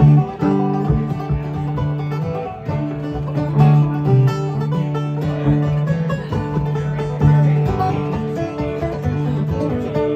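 Live bluegrass string band playing a tune on banjo, acoustic guitar and fiddle.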